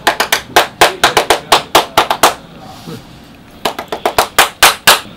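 Hands clapping quickly in a rhythm, about five or six claps a second, pausing for about a second midway and then starting again.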